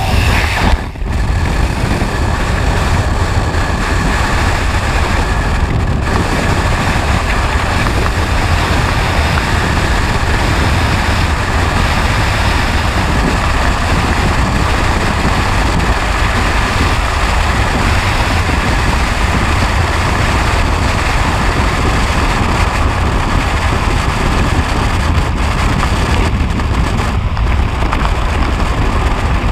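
Freefall wind rushing over a skydiver's helmet-camera microphone: loud and steady, heaviest in the low end, with a brief drop about a second in.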